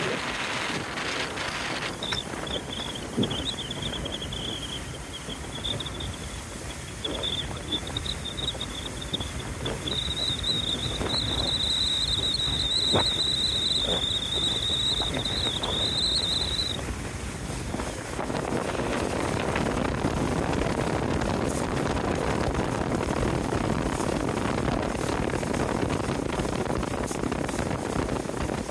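Wind buffeting the microphone and water rushing past a boat under way. A high, wavering whine sits over the rush from about two seconds in until about halfway through, after which the wind and water noise grows fuller.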